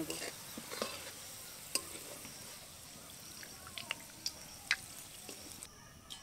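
Hot oil sizzling in an aluminium kadai as deep-fried onion slices (birista) are lifted out with a slotted metal spatula, with several light clicks of the metal spatula against the pan. The sizzle drops away shortly before the end.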